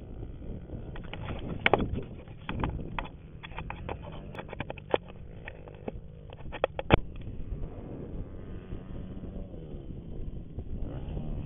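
Fingers knocking and rubbing on a camera as it is adjusted: a quick run of sharp clicks and knocks over the first seven seconds. Under them a steady low engine rumble, likely from a quad idling, picks up a little near the end.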